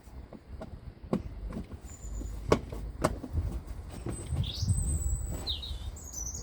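Small birds chirping now and then with short high calls and sweeps, over a low rumble, with a few sharp clicks or knocks, the loudest about two and a half seconds in.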